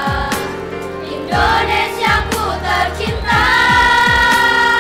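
Girls' choir singing in harmony, swelling into a long held chord about three seconds in, with low drum beats in the accompaniment.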